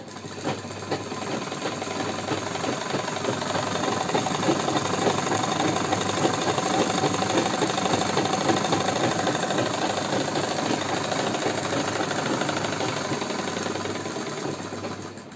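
Sewing machine running steadily at speed, stitching a wavy decorative line through the salwar hem fabric; it picks up over the first few seconds and slows near the end.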